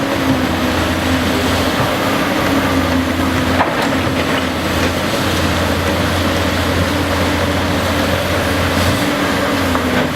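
Large Cat 385BL excavator running steadily under load, its engine hum and hydraulics constant, with a single sharp knock about three and a half seconds in.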